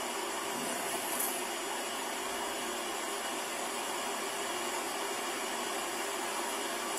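Steady, even fan noise from server-rack equipment in a small equipment room, recorded through a body-worn camera's microphone.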